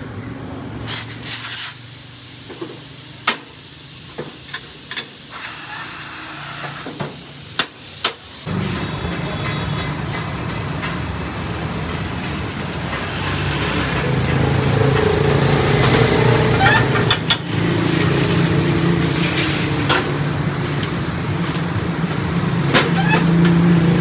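Street traffic noise with motorcycle and car engines running, joined by scattered metallic clicks and clinks from the tyre changer and steel wheel rim. The first third is mostly an even hiss with a few sharp clicks. About a third of the way in, it switches abruptly to heavier, steady engine noise.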